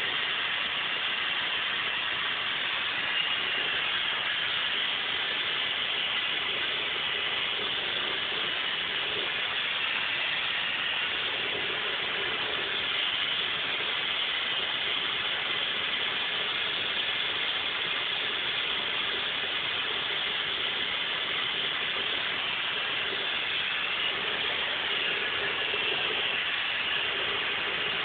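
Steady hiss of a paint spray gun spraying waterbase paint onto a car body, over the even rush of the paint booth's ventilation airflow.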